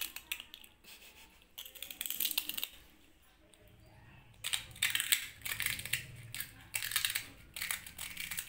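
Kittens biting and chewing Kurkure, a crispy corn puff snack, in bursts of crackly crunching: a bite at the start, a cluster about two seconds in, and near-continuous crunching from about four and a half seconds on.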